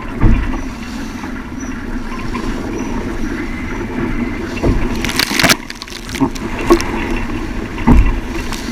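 Strong wind rushing over the microphone and water washing against a sailing yacht's hull, with a louder splash about five seconds in and low thumps near the start and end.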